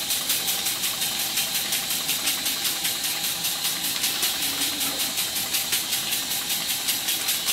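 A circa-1896 model steam engine running at high speed on live steam: a rapid, even beat of exhaust puffs over a steady hiss of steam blowing badly from its dummy piston rod gland.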